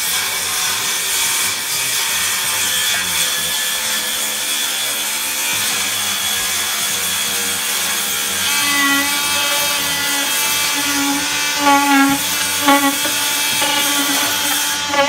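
A cordless power tool running steadily as it cuts into the foam insulation of a SIP panel, with a steady hiss.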